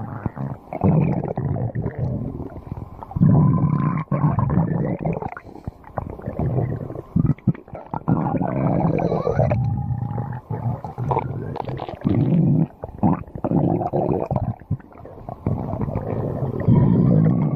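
Stomach growling: a string of gurgling rumbles, one after another with short breaks, with squeaky gurgles that slide up and down in pitch, mostly around the middle.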